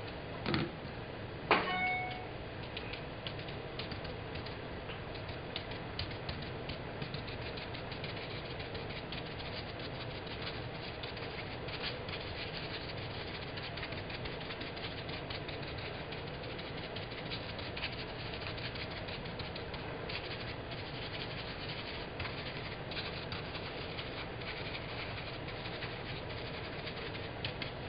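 Steady background hum with faint soft tapping as a paint dauber is pressed again and again onto fabric on a hard countertop. Two sharper clicks come in the first two seconds.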